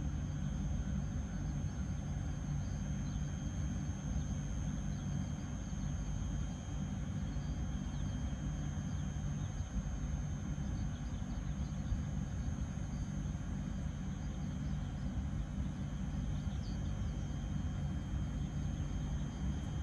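JR Hokkaido 721-series electric multiple unit standing at the platform with its onboard equipment running: a steady low hum with a faint constant high-pitched whine.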